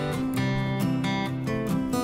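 Background music: acoustic guitar strumming and plucking a steady run of chords and notes.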